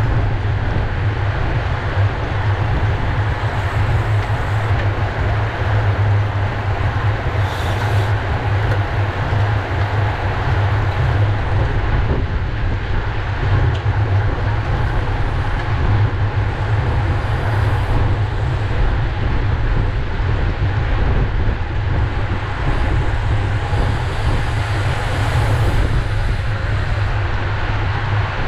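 Steady wind buffeting on the microphone of a camera mounted on a racing bicycle at race speed: a constant low rumble over an even rushing hiss.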